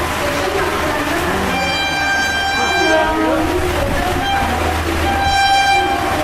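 WAP-4 electric locomotive horn sounding two blasts, the first about a second and a half in and lasting about a second and a half, the second shorter near the end. Under the horn runs the steady low rumble and rush of the Duronto Express coming through at speed.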